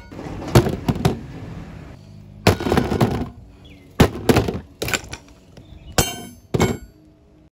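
A hammer striking a wet metal tabletop beside an AirPods case: about nine sharp metallic clangs, the later ones ringing briefly, before the sound cuts off suddenly.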